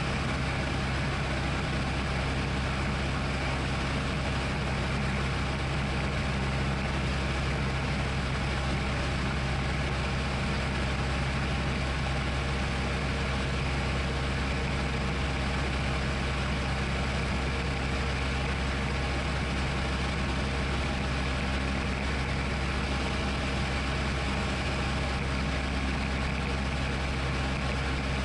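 Steady drone of a Tecnam P2002 Sierra's Rotax 912 flat-four engine and propeller, heard inside the cockpit, held at constant power with no change in pitch.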